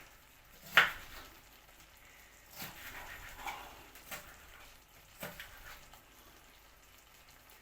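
Knife knocking on a chopping board a few separate times while a Scotch bonnet chilli is chopped up. The loudest, sharpest knock comes about a second in; the rest are lighter and irregular.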